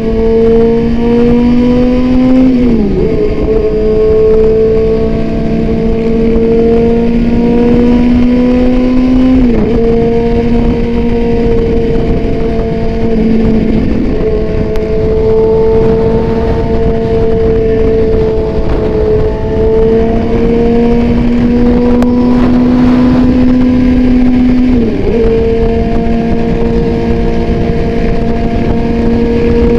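Sport motorcycle with an Austin Racing aftermarket exhaust running at highway speed, holding a loud, steady engine note that climbs slowly in pitch. The note dips sharply and recovers three times, about three seconds in, near ten seconds and near twenty-five seconds, with a steady rush of noise underneath.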